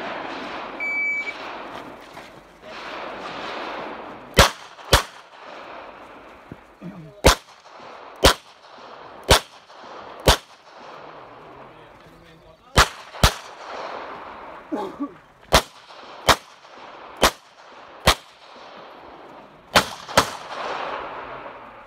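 A shot-timer start beep about a second in, then a 9mm CZ Shadow 2 pistol fired through a course of fire. There are about fifteen shots between about four and twenty seconds in, some as quick pairs and others about a second apart.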